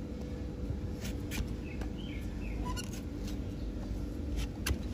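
A large flat hoof knife paring horn from a donkey's hoof, giving a few short sharp crunching clicks, the strongest near the end, over a steady low hum. A few faint bird chirps come in the middle.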